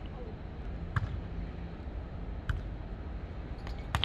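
Volleyball being struck by players' hands and forearms: three sharp hits about a second and a half apart, over a steady background hum.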